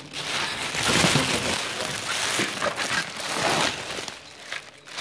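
Thin plastic bag crinkling and rustling as it is handled and opened close to the microphone, easing off near the end.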